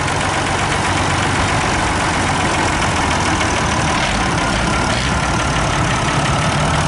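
Vintage farm tractor engine running steadily at low revs as the tractor drives slowly past.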